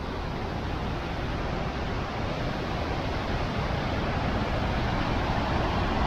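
A fast river rushing over rapids: a steady wash of water noise that grows slowly louder.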